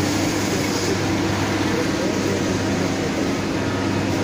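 Mat production line machinery running with a steady hum over an even mechanical noise.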